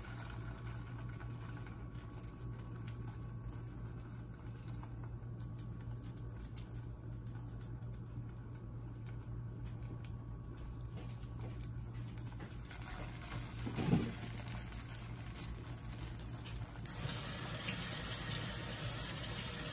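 Oil frying softly and crackling under a patty of egg and eggplant batter in a frying pan, over a steady low hum. The sizzle grows louder near the end as a second ladleful of batter goes into the hot oil. There is one brief louder sound about two-thirds of the way through.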